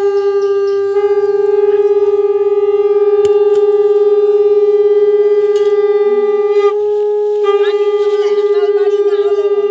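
Conch shells (shankha) blown in one long, steady note, as at a Hindu puja. The note falls away briefly about seven seconds in, then swells again.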